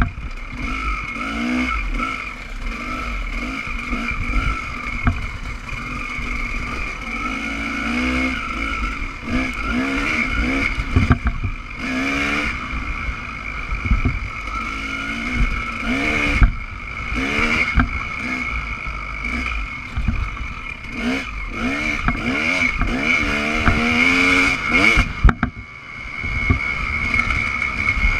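Off-road dirt bike engine revving up and dropping back again and again as the rider accelerates and shifts along the trail, with scattered sharp knocks from the bike over ruts and roots.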